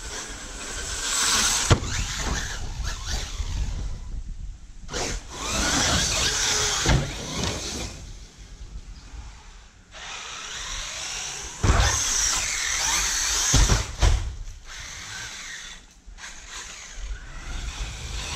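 Electric RC monster truck's motor whining in several bursts as it speeds up and jumps, with a few sharp thumps as it lands and hits the ground.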